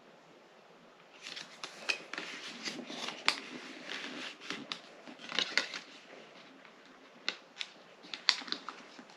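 Paper and packaging being handled: an irregular rustle with sharp clicks and crinkles, starting about a second in.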